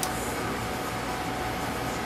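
Steady mechanical hum and hiss of background machinery, with a faint steady whine running through it and one short click right at the start.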